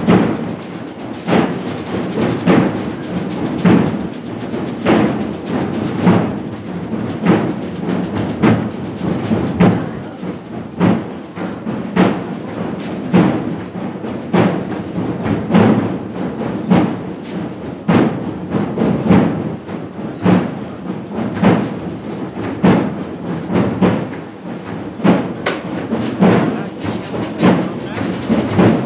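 Procession drums beating a slow, steady march: a heavy stroke about once a second with lighter strokes between.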